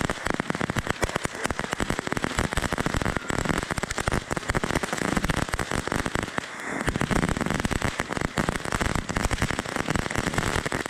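Fireworks crackling at close range, heard from right beside them: a dense, unbroken run of sharp crackles and pops that cuts off suddenly at the end.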